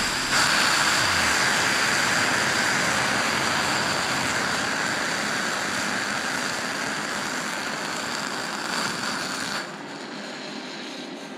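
Water poured into a hot, freshly welded exhaust manifold hisses and boils off as steam against the metal. The steady hiss cuts off suddenly near the end.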